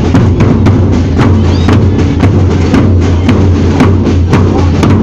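A drum band's bass drums and rope-tensioned side drums playing a steady marching beat, loud, with strong strokes about twice a second over continuous drum rolls.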